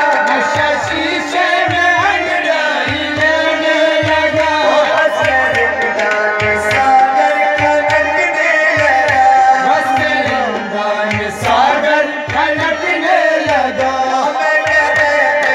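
A man singing an ornamented melody into a microphone, accompanied by a harmonium's sustained reedy chords and a hand drum keeping a steady beat of low strokes.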